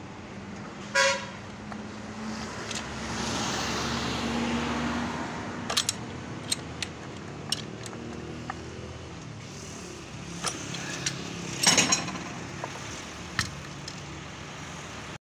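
Sharp metallic clicks and knocks from a large steel pipe wrench gripping and slipping on the steel ram of a 32-ton bottle jack as it is unscrewed. The loudest cluster comes near the end. Road traffic runs behind: a short horn toot about a second in, then a vehicle passing.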